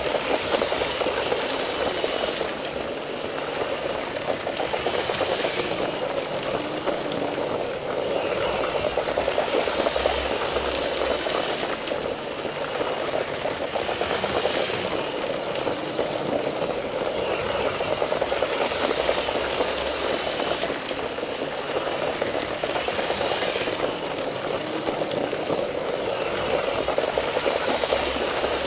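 Lego 9V train's electric motor running steadily, with its wheels rolling along the plastic track, heard from a phone riding on the train. The sound swells every few seconds.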